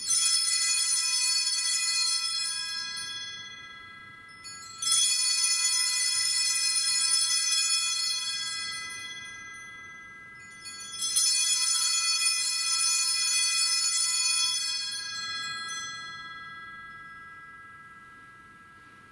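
Altar bells rung three times during the elevation of the chalice at the consecration: a bright, high cluster of bell tones at the start, again about five seconds in and again about eleven seconds in, each ringing on for a few seconds before fading away.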